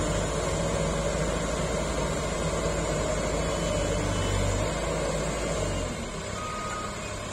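Case 770EX backhoe loader's engine running steadily, its low note dropping away and the sound getting quieter about six seconds in.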